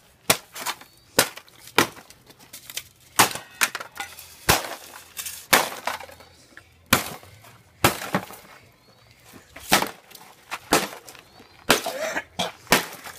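An old refrigerator being smashed apart: a rapid, irregular series of sharp blows, about one or two a second, cracking and breaking its plastic parts.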